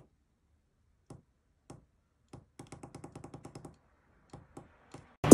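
Small tactile push-button switch on a breadboard clicking as it is pressed: single clicks about half a second to a second apart, then a quick run of about ten clicks, then three more. Loud music cuts in right at the end.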